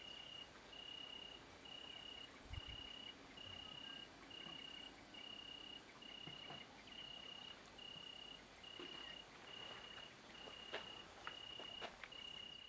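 Faint chorus of crickets on a summer evening: a steady high-pitched chirring, with a clear chirp repeating at an even pace a little under twice a second, and a few faint clicks.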